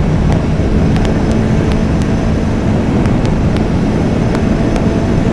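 Snowmobile running steadily at part throttle at about 120 km/h, heard from on board. The source is a 2022 Ski-Doo Mach Z with a 900 ACE Turbo R turbocharged three-cylinder four-stroke, fitted with an aftermarket ECU tune and downpipe. It makes a dense, even rumble with a faint steady engine tone and a few light clicks over bumpy snow.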